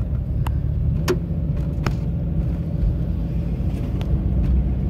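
Steady low rumble of a car driving, heard from inside the cabin, with three short sharp clicks in the first two seconds.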